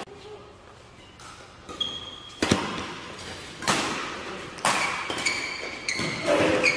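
Badminton rally: racket strings striking a shuttlecock about once a second, sharp cracks ringing in a large hall, starting about two seconds in, with short high squeaks of court shoes between the hits.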